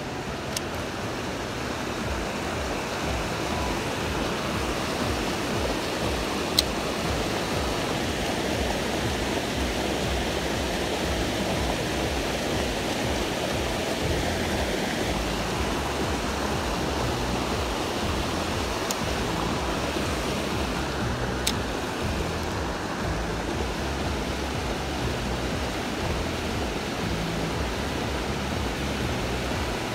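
River water rushing over stepped concrete blocks and shallow rapids: a steady rushing noise, with a few brief sharp clicks.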